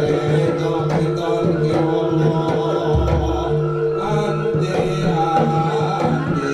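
Live jaranan gamelan ensemble playing: sustained ringing pitched tones over steady drumming, with a deep low stroke about three seconds in.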